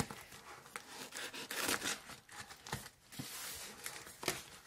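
A taped cardboard box being torn open by hand: packing tape and cardboard ripping in short stretches, with scraping and a few light knocks.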